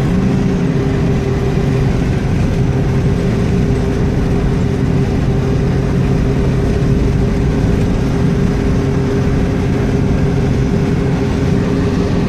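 Steady engine drone and road noise heard from inside a moving road vehicle, with a constant low hum.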